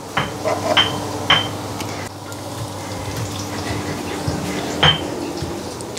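Chili sambal being ground with a pestle in a mortar: wet crushing and scraping, with a few sharp knocks of the pestle against the mortar.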